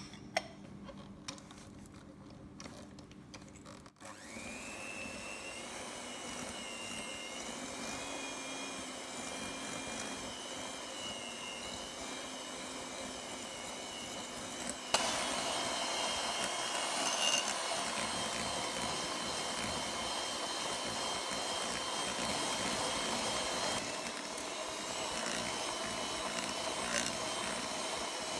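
Electric mixer with twin metal beaters creaming butter and sugar in a glass bowl: a steady motor whine that wavers slightly in pitch, starting about four seconds in after a few faint clicks. It gets louder about halfway through.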